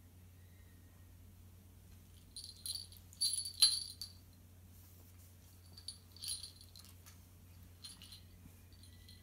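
Metal tags or a bell on a pet's collar jingling in three short bouts as the puppy rolls and tussles, loudest a little before the middle.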